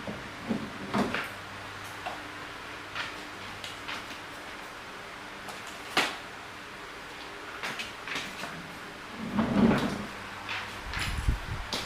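Tools and parts being handled on a workbench: scattered clicks and knocks, a sharp click about six seconds in, and louder clattering towards the end, over a faint steady hum.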